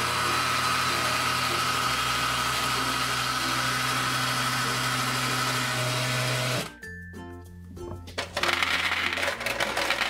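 Toy blender running with its jar full of gumballs, a steady whirring noise that cuts off suddenly after about six and a half seconds. Near the end, gumballs clatter.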